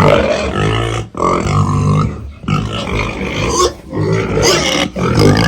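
Pigs grunting loudly at feeding time, a string of calls one after another with short breaks between them.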